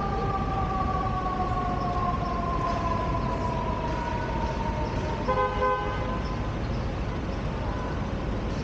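Street traffic with an emergency-vehicle siren holding a two-note tone that slides slowly downward and dies away about five seconds in. Then a vehicle horn gives one short honk.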